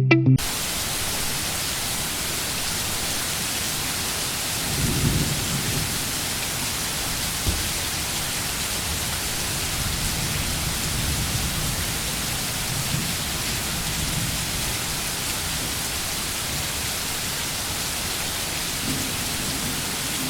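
Steady rain with a low rumble of thunder about five seconds in and a fainter one near the end.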